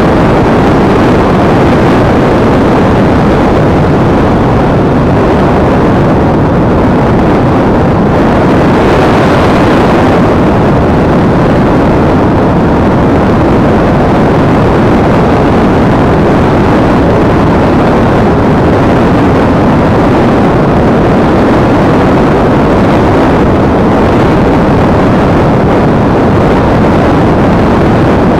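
Loud, steady in-flight rush picked up by an action camera riding on an EasyStar RC model plane, made by airflow over the airframe and camera. It gets brighter for a moment about nine seconds in.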